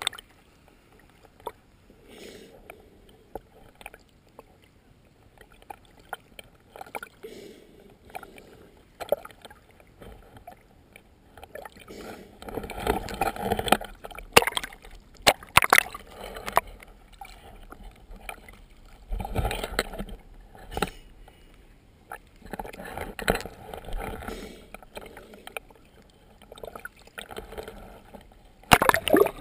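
Water sloshing and lapping in irregular splashes, with a few sharp knocks.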